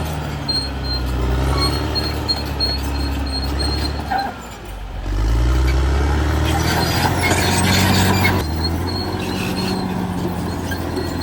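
Caterpillar D6R XL bulldozer's diesel engine running, dropping off briefly about four seconds in, then revving back up under load. Metallic clatter from the steel tracks comes in partway through.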